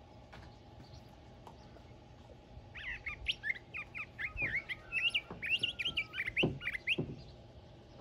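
A small songbird sings one long, fast, warbling song of varied chirps and quick up-and-down notes. It starts about three seconds in and lasts about four seconds.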